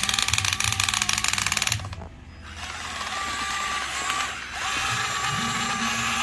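Small electric motors and plastic gearboxes of toy robots working: a rapid clicking clatter for about the first two seconds, then, after a brief lull, a steady motor whine that continues to the end.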